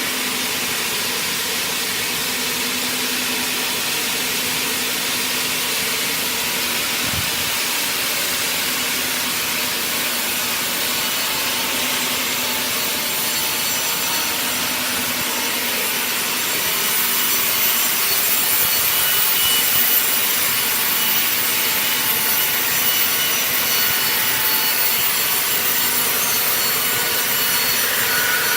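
Circular sawmill blade running steadily and sawing through wood, with a high whine; it gets louder and shriller a little past halfway.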